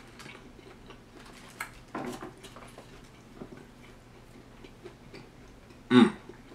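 A person chewing a fried chicken wing with the mouth close to the microphone: scattered small wet clicks and smacks, with a short louder vocal sound about six seconds in.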